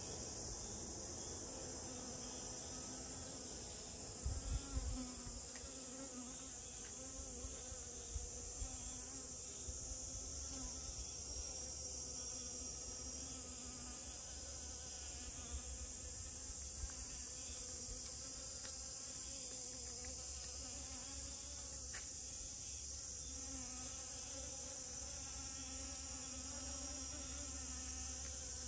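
Honeybees buzzing in flight around flowers: a low wingbeat hum that swells and fades as they come and go. A few low thumps about four seconds in.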